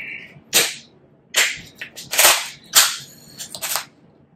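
Shell of a cooked mangrove crab cracking as it is pried open by hand: five or six sharp cracks over a few seconds.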